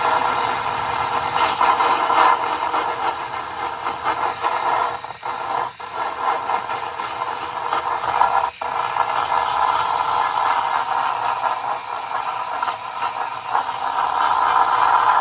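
Small electric sander running continuously against plastic, a steady whir with a rasping grind. It switches on abruptly at the start and dips briefly a few times, and the plastic heats up from the friction.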